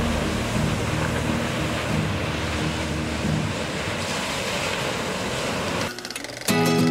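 Ocean waves breaking and washing up on the beach, a steady rush with wind on the microphone. Near the end it drops away and a strummed guitar chord comes in.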